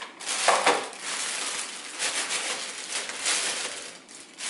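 Thin plastic bag crinkling and rustling as fresh herb sprigs are pulled out of it and dropped into a plastic salad spinner basket.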